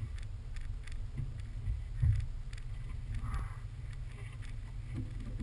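Low steady rumble of a car towing a sled over a snowy road, heard with wind on the microphone, with scattered knocks and a heavier thump about two seconds in.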